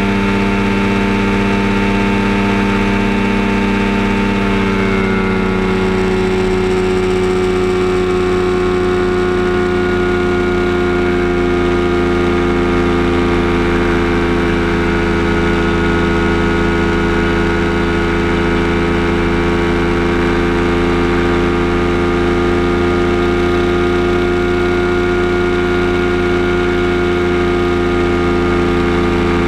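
Kolb Firestar II ultralight's pusher engine and propeller running steadily in cruise flight, heard from the open cockpit. The engine note steps down slightly about five seconds in, then holds even.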